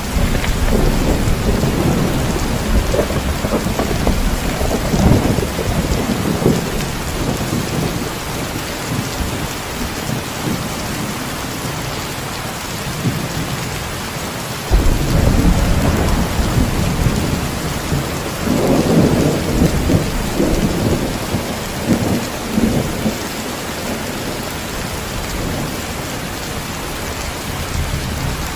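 Heavy rain falling steadily, with rolling thunder: one rumble dying away over the first several seconds, and another that starts suddenly about halfway through and rolls on for about eight seconds.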